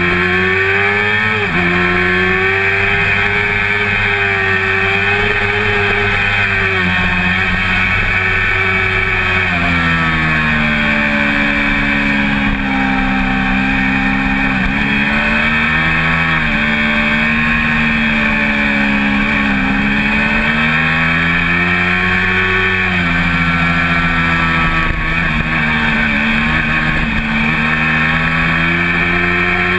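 1988 Honda CBR400RR's inline-four engine at racing revs, its pitch climbing and dropping in steps as it is shifted up and down through the gears, under steady wind noise.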